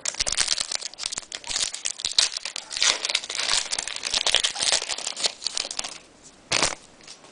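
Foil wrapper of a hockey card pack crinkling and tearing as it is opened, dense crackling for about six seconds, then one short rustle.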